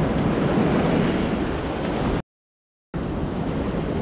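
Shallow surf washing and foaming around the legs, with wind buffeting the microphone. The sound drops out completely for under a second about two seconds in.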